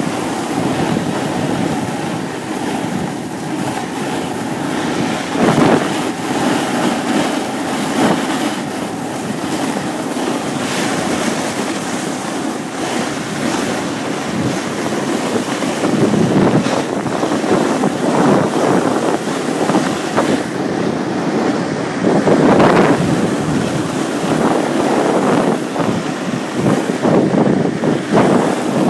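A snowboard sliding and scraping over snow while riding downhill, with wind rushing over the microphone. The rush swells and eases unevenly.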